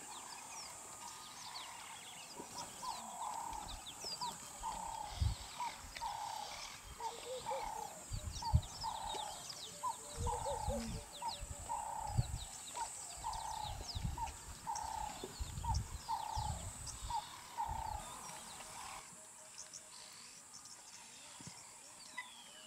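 A bird repeats a single mid-pitched note steadily, nearly two a second, for about sixteen seconds, over short high chirps from other birds. Dull low thuds come now and then through the middle.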